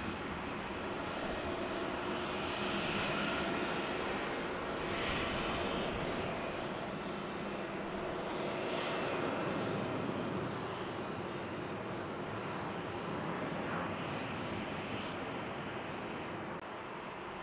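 Pegasus Airlines Airbus A321neo jet airliner at takeoff power. The twin turbofans make a continuous, steady roar, swelling and easing a little, as it rolls down the runway, lifts off and climbs away.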